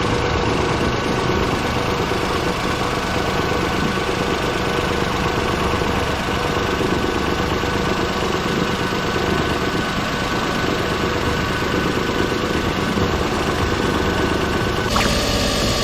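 Suzuki Alto's engine idling steadily, as it must run to draw in the air-conditioning refrigerant additive. A brighter hiss joins near the end.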